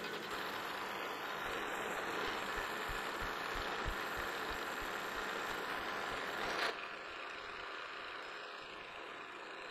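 Milling machine running a roughing end mill through a metal workpiece: a steady cutting noise that drops a little in level about two-thirds of the way through.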